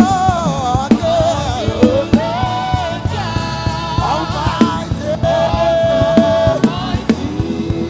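Live gospel worship music: voices singing a melody over a band with steady drum beats.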